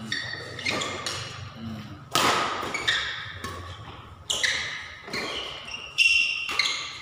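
Badminton rackets striking the shuttlecock in a fast doubles rally: sharp hits every second or two, each ringing in the echo of a large hall, the loudest about two, four and six seconds in, with lighter thuds of footsteps on the court between them.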